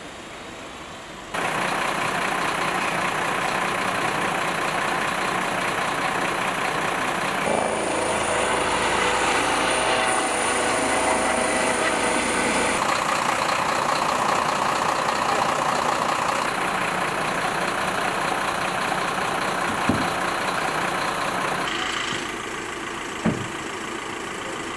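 Steady vehicle engine noise that changes abruptly a few times. Partway through, a helicopter's turbine whine and rotor sound overhead. Two short sharp knocks come near the end.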